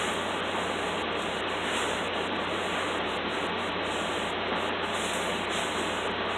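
A steady, even hiss with a faint low hum and no separate knocks or clicks.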